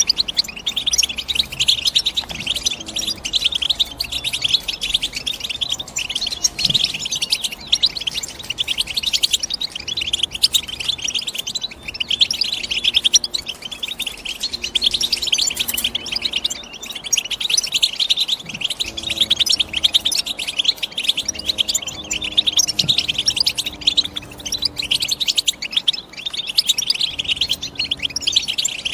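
European goldfinch singing: a fast, continuous twittering run of high chirps with only brief lulls.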